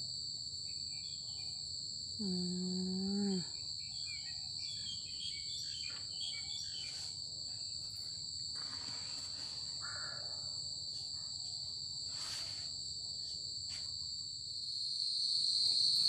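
Steady high-pitched drone of insects. About two seconds in comes a brief low hum lasting about a second, with faint scattered rustles and knocks later on.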